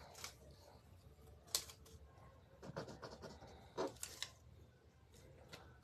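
Faint handling noises: about half a dozen light clicks with a little rustling between them, from small items being picked up and moved about.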